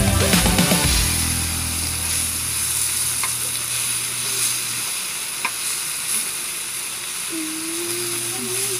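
Marinated pork belly sizzling on a grill pan, a steady hiss, while tongs turn the pieces with a couple of light clicks against the pan.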